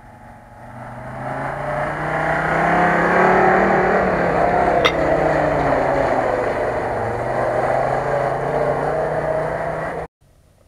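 A UAZ-469 off-roader's engine pulling hard as it drives along a muddy track and through puddles, with tyre and water splash noise. The sound swells over the first two seconds and stays loud, with one sharp click about five seconds in, then cuts off abruptly near the end.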